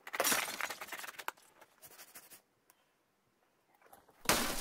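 Rapid scraping of a nail file against a leather boot, many quick strokes for about two seconds, then a pause. A louder scraping rustle starts near the end.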